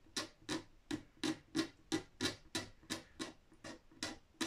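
Razor blade scraping built-up finish on a guitar headstock to level it, in short even strokes, about three a second.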